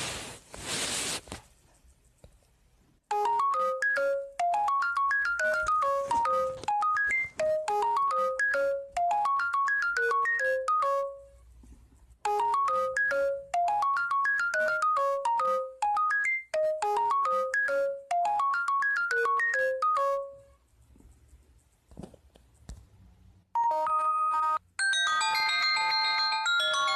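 An LG K7 Android smartphone playing a melodic tone through its speaker: a chiming figure of quick notes rising and falling, played through twice with a short gap between. A brief burst of hiss comes at the start, and a different tone with many stacked notes begins near the end.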